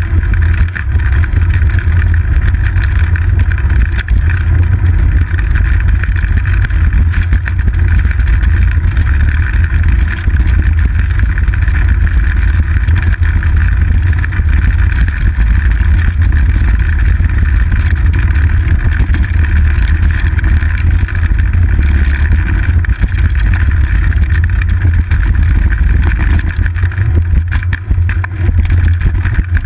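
Steady, loud low rumble of wind buffeting and ride vibration picked up by a seat-post-mounted GoPro Hero 2 while the bicycle rolls along a paved path.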